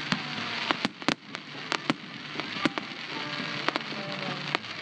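Fireworks bursting in the air: a rapid, irregular string of sharp pops and cracks. The loudest strikes come about a second in and again near the middle.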